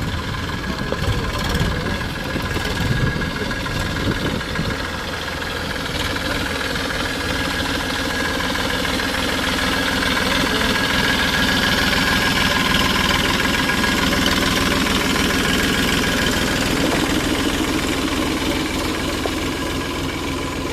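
Massey Ferguson 245 tractor's three-cylinder diesel engine running steadily, growing a little louder through the middle and then easing back.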